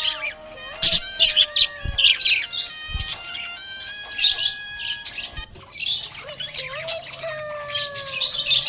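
Budgerigar chirping in short bursts every couple of seconds, over background music with long held notes.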